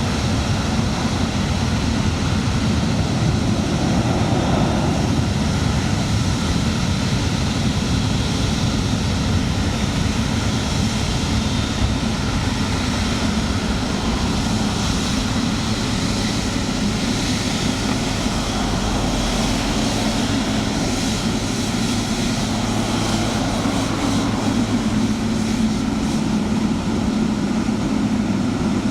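Jet airliner engines running steadily, a continuous noise with a faint high whine above it.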